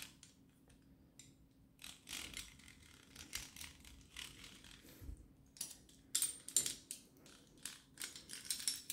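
Jigsaw housing and parts being handled during disassembly: irregular small clicks, scrapes and rattles, busiest about six to seven seconds in.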